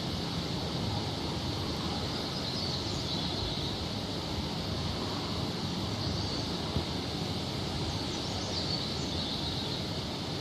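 Steady outdoor background noise with faint high bird chirps, about three short bouts.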